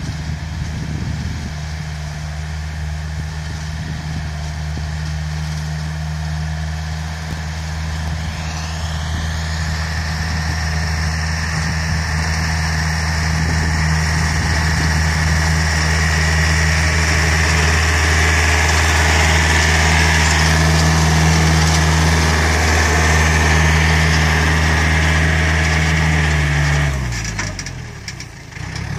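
Yanmar EF454T tractor's diesel engine running steadily as the tractor pulls a disc ridging plough through soil, growing louder as it draws near. Near the end the engine note drops in pitch and the sound dips briefly before picking up again.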